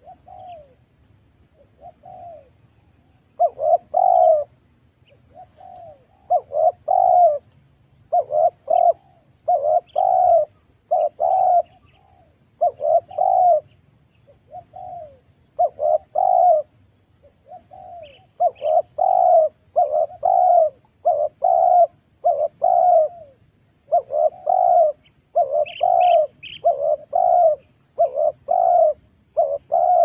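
Spotted doves (tekukur) cooing over and over in short phrases of several notes, from a recording played as a lure to call in wild doves. A few faint high chirps sound behind them, about two-thirds of the way in and again near the end.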